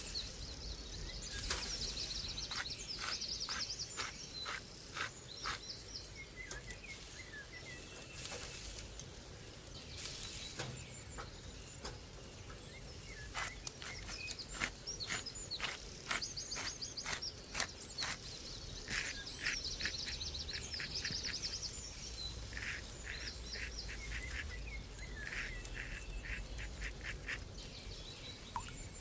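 Wild songbirds trilling and chirping again and again, over a run of short sharp taps or clicks that come in quick series several times.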